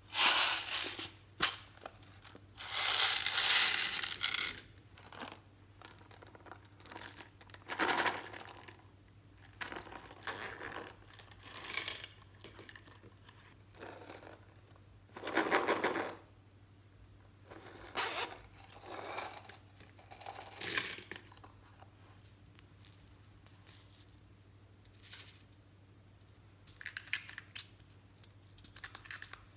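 Small hard plastic cases being handled and opened: clicks, rattles and scrapes in a string of short bursts with quiet gaps between, the longest about three seconds in.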